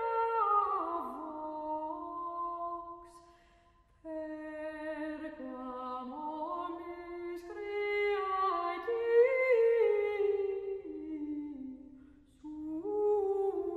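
Background music of wordless a cappella humming, a slow melody moving in held, stepwise notes, with short pauses between phrases about four seconds in and again near the end.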